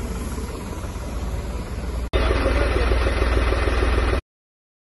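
New Holland 5620 tractor's diesel engine idling, heard close with an even low throb. About two seconds in the sound jumps louder, then stops abruptly a little after four seconds.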